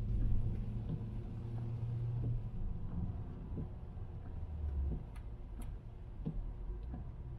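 A car being driven, heard as a low, steady engine and road drone that is louder in the first couple of seconds. Light ticks and clicks are scattered unevenly through it.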